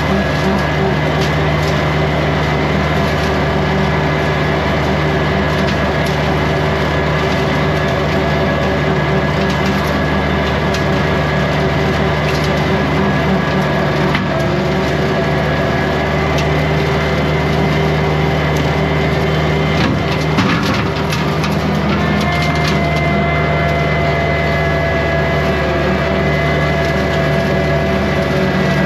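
Kubota compact tractor's diesel engine running steadily under load, driving a rotary brush cutter whose blades crush and snap brush and small wood, with clusters of cracking about ten seconds in and again about twenty seconds in. The whine from the drive shifts pitch a little around the middle and again near the end.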